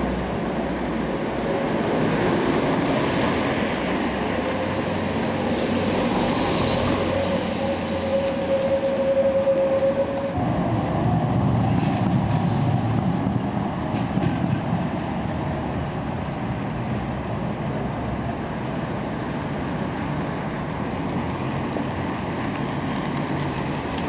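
Tram running on city street track amid street noise, with a drawn-out whine held for several seconds in the first half.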